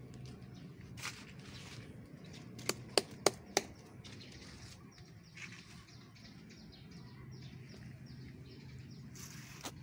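Outdoor backyard ambience with a steady low hum and faint bird chirps. About three seconds in come four sharp clicks in quick succession, about three a second, and a short rustle comes near the end.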